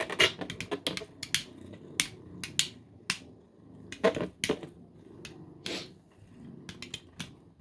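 Two 3D-printed beyblades, Arachne and Teravolt, spinning in a stadium: a low whir broken by irregular sharp clacks as the tops collide and hit the stadium wall, the loudest about four seconds in and again near six seconds.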